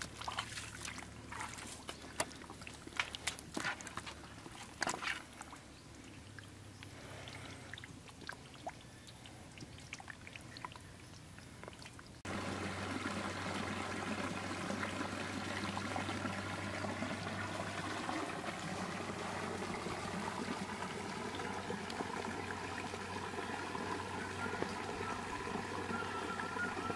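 Live eels squirming in a bucket of mud and water, making scattered wet slaps, squelches and small splashes. About twelve seconds in, this gives way to a steady trickle of water running into a muddy ditch pool.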